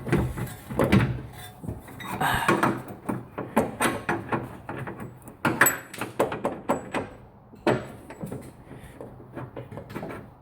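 Irregular metallic knocks, clanks and rattles as a Mazda Miata's front suspension A-arm is worked back into place by hand.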